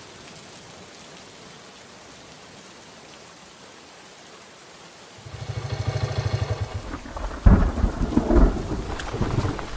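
Thunderstorm: steady rain, then about five seconds in a fast pulsing rattle for a second and a half, followed by a loud sudden thunderclap and rolling rumbles.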